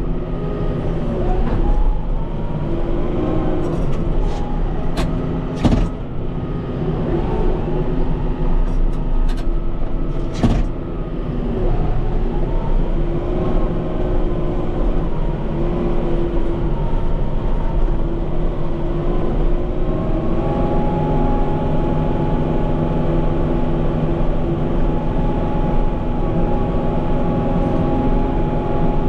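Kubota M5-091 tractor's four-cylinder diesel engine working under load pushing snow, its pitch rising and falling, with several sharp knocks in the first ten seconds or so. About twenty seconds in, the engine settles to a steady, higher pitch.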